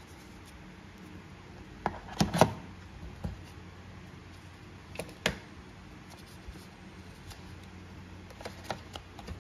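Unboxing handling noise: a white phone charger is set into the box's moulded plastic tray, with a cluster of sharp clicks and knocks about two seconds in and a few more single clicks later. Lighter taps and clicks come near the end as a paper insert is lifted out of the box.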